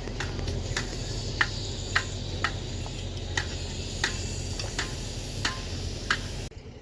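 A machine engine running steadily under a regular sharp ticking, about one tick every half to two-thirds of a second. The sound cuts off abruptly near the end.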